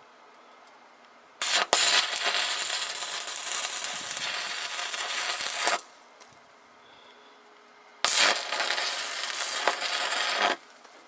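Stick (arc) welding arc burning against metal tube, in two runs: about four seconds, then a gap, then about two and a half seconds. Each run starts with a sharp strike and cuts off suddenly.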